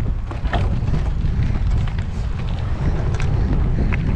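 Wind rumbling on the microphone, a steady low rumble, with faint scattered ticks over it.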